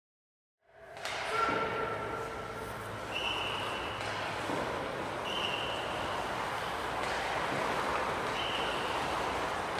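Hockey skate blades scraping and carving on the ice of an indoor rink, heard as a steady hiss. It fades in about a second in, and short high tones break through every two to three seconds.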